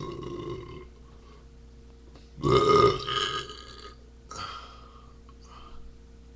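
A person burping several times: a short burp at the start, a long loud one about two and a half seconds in that trails off, and a smaller one about four seconds in.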